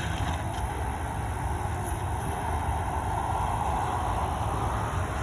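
Wood chipper running steadily: a low engine drone with a rushing whir above it.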